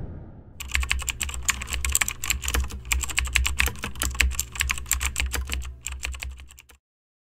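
Rapid keyboard typing: a dense run of sharp clicks over a low steady hum, stopping abruptly near the end.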